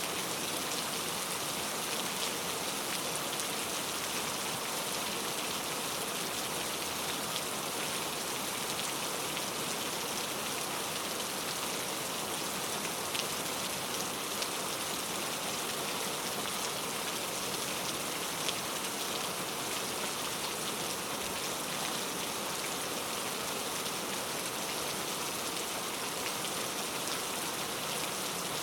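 Steady rain falling without a break, with individual drops ticking through the even hiss; no thunder.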